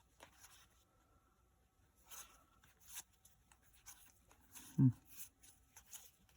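Pokémon trading cards being handled and slid over one another: scattered soft rustles and light clicks. A brief low sound from the voice comes about three-quarters of the way through.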